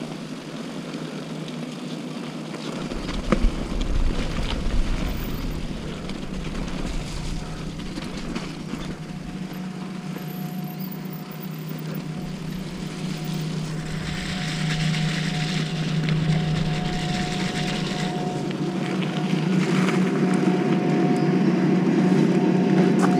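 An engine droning steadily and slowly getting louder, with a higher steady tone joining about nine seconds in.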